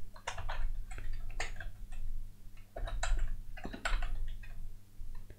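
Typing on a computer keyboard: irregular key clicks in short runs.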